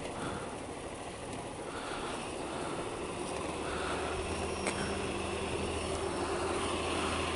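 Vehicle engines running close by as a car squeezes past on a narrow lane. A steady low engine hum comes in about halfway through and holds, with one short click in the middle.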